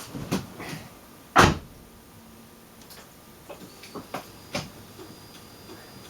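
A car door shutting with one loud thump about a second and a half in, among lighter knocks and clicks.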